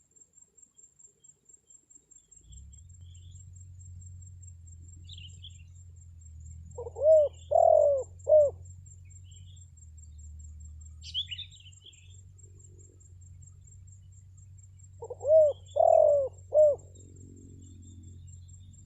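Spotted dove (tekukur) cooing, a decoy bird's lure call: two three-note coo phrases (short, long, short) about eight seconds apart. Faint chirps of small birds and a steady low hum lie beneath.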